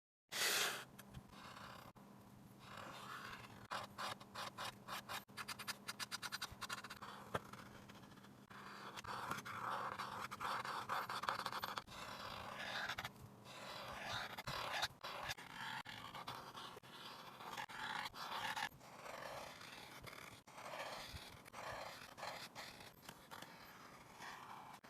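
A drawing tool scratching across a surface in a run of short strokes. From about four to eight seconds in, the strokes come as quick, closely spaced back-and-forth hatching.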